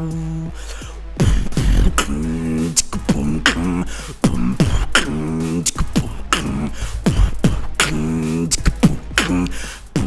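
Beatboxing: a fast rhythm of sharp mouth-made kick, snare and hi-hat sounds, with hummed pitched bass notes woven in every couple of seconds.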